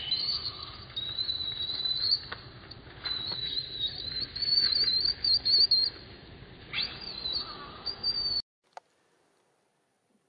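Baby macaque screaming: shrill squeals that rise sharply in pitch, with a run of wavering high cries in the middle. The screaming cuts off suddenly about eight seconds in.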